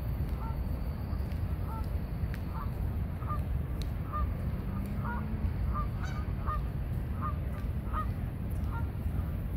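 A flock of Canada geese honking, short calls coming one or two a second, over a steady low rumble.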